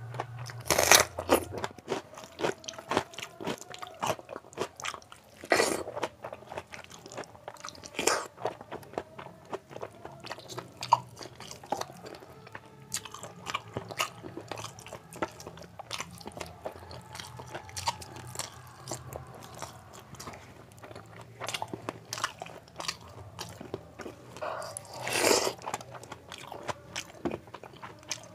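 Close-miked eating by hand: wet crunchy bites and chewing of water-soaked rice with raw onion and fried sides. The first loud crunch, a bite of raw onion, comes about a second in, and there are more loud crunches around 6 and 8 seconds and near the end, with steady softer chewing clicks between.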